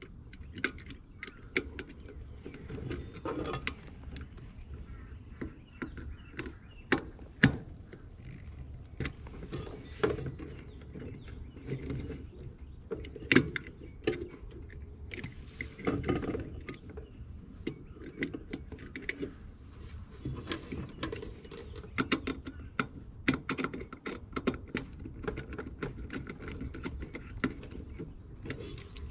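Hands handling wiring and a sensor lead in a heat pump outdoor unit's control panel: irregular clicks and taps of wire, connectors and sheet metal.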